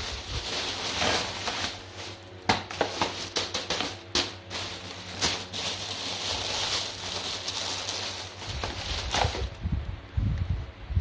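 Thin plastic carrier bags rustling and crinkling as they are pulled and handled, with sharp crackles throughout.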